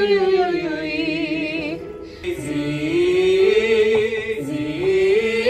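Singing voice holding long notes with a wide vibrato, then moving up and down in steps, with a short break about two seconds in: a vocal warm-up.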